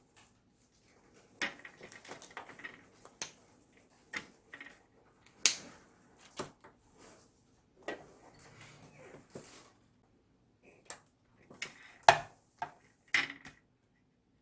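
Irregular clicks, taps and light clattering of small hard parts and tools being handled during work on an LED ceiling light, with two sharper knocks standing out, one about five seconds in and one near the end.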